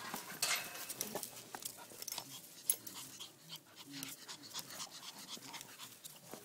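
Rottweiler chewing an apple: a run of irregular crunches and chomps.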